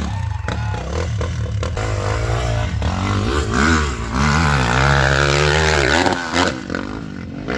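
Dirt bike engine revving hard up a steep gravel hill climb, its pitch rising and falling sharply for a few seconds from about three seconds in. Underneath is the steady low rumble of a side-by-side engine idling.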